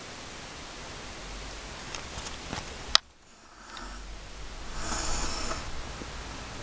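Handling noise with a steady hiss, faint ticks and one sharp click about three seconds in, then soft rustling.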